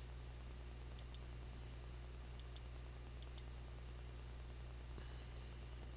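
Computer mouse clicking: three quick paired clicks, spaced roughly a second apart, over a steady low electrical hum.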